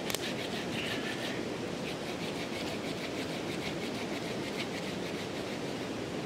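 A fast river rushing as a steady noise, with a wood campfire crackling over it in many small pops and a sharper snap right at the start.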